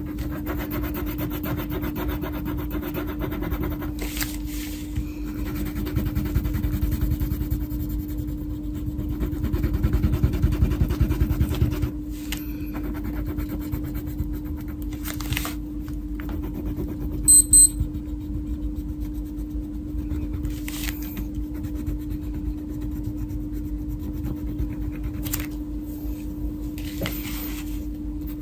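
Wax crayon rubbing back and forth on paper as a colouring page is shaded in, over a steady low hum. Two very short high beeps sound a little past halfway.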